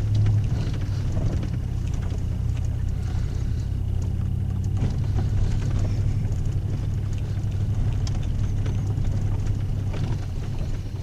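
Vehicle driving on a rough road: a steady low engine and road rumble with a few light knocks and rattles.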